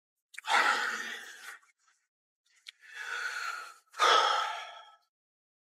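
A man's three heavy, sighing breaths: a loud breath out, a quieter drawn breath, then another loud breath out.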